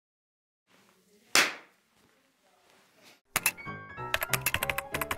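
A single sharp thump about a second in, then from about three seconds in a bright intro jingle starts: quick clicking, typewriter-like strokes over short pitched notes.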